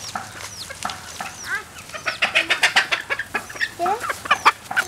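Chickens clucking and calling, with a quick run of clucks a little past two seconds in and high, falling chirps among them.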